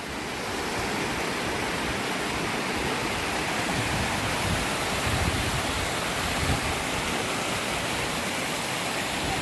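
Creek water rushing steadily below a waterfall, a little louder from about half a second in.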